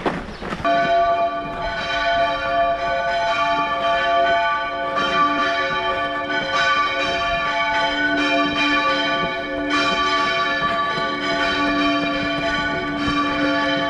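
Church bells ringing, struck again and again about once a second, their tones overlapping and ringing on; the ringing starts suddenly just under a second in.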